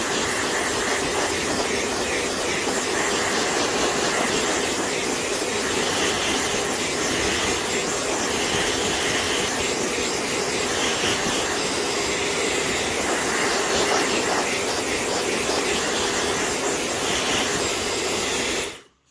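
Handheld hairdryer running steadily: a loud rush of air over a motor hum, cutting off suddenly near the end.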